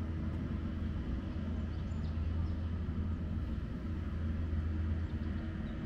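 Steady low hum of background noise, with no distinct event.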